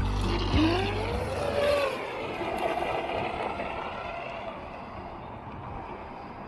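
Atomic SR-85 RC boat's electric motor whining, rising in pitch as it speeds up over the first two seconds, then fading steadily as the boat runs away.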